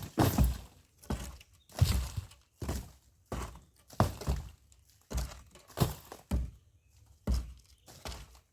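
A hammer striking the masonry wall of a pit latrine as it is knocked down, about a dozen heavy blows at an uneven pace of roughly one a second.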